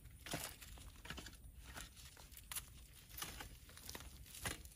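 Gloved hands digging through and pulling at raised-bed soil, with irregular faint scrapes and crunches of dirt and roots.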